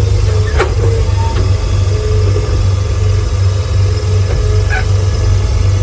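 Heavy diesel engine of earthmoving equipment running steadily, with a strong low drone.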